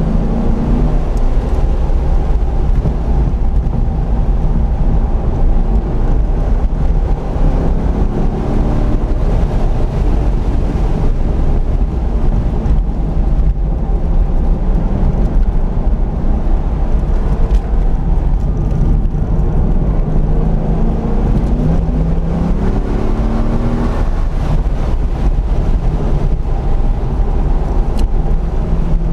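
Chevrolet Corvette C5 Z06's LS6 V8 driven hard around a race track, heard from inside the cabin. The engine note climbs in pitch several times under acceleration and drops back between pulls, over steady road and wind noise.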